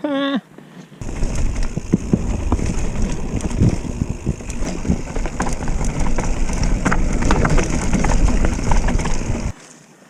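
Mountain bike being ridden along a dirt trail, heard from a camera on the bike or rider: wind rumbles on the microphone, mixed with scattered knocks and clatter from the bike over the ground. It starts about a second in and cuts off abruptly near the end.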